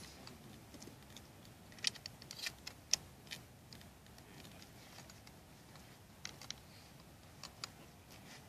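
Scattered light clicks and knocks from a shotgun being handled and loaded, a cluster of them about two to three seconds in and a few more later.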